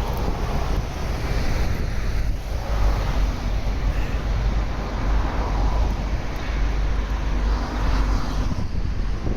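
Wind buffeting the microphone over road traffic, with several vehicles passing.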